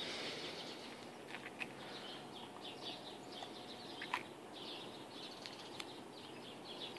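Faint birds chirping in quick repeated calls, with a few light clicks, the sharpest about four seconds in.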